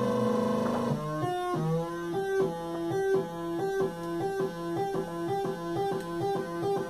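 Modular synth of three oscillators, two used as LFOs frequency-modulating the third: a pitched synth tone slides slowly down, then about a second in breaks into a fast repeating pattern of stepped pitches, a few steps a second, as the knobs are turned.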